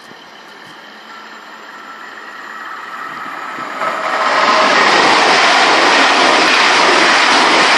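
A passenger train approaching, its noise building steadily over about four seconds, then passing close by with a loud, even rush of wheel and rail noise.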